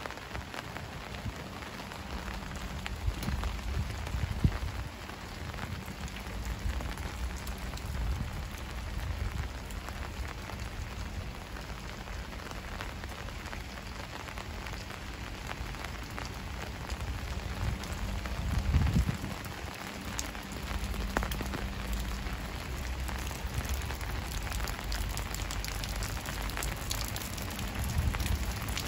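Steady rain falling on a street, with scattered sharper drop hits and a low rumble that swells briefly about nineteen seconds in.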